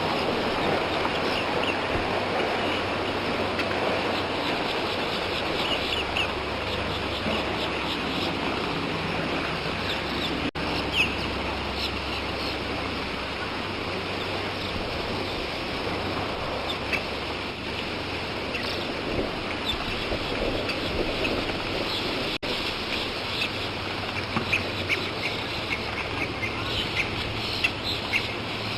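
Bird ambience recording: many birds calling over a dense, steady background of natural outdoor noise, with short chirps coming more often near the end. There are two very brief dropouts, about ten and twenty-two seconds in.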